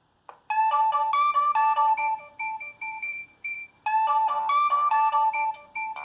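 Nokia 6225 preloaded ringtone playing through the phone's speaker: a synthesized melody of short electronic notes. It starts after a short click, pauses briefly a little past halfway, then repeats its phrase.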